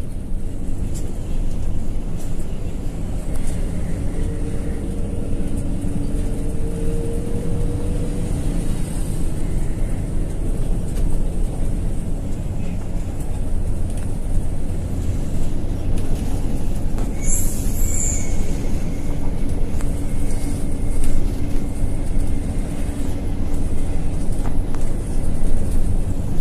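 Cabin noise at the front of a moving coach bus: a steady engine drone and road rumble, with a short high hiss about two-thirds of the way through.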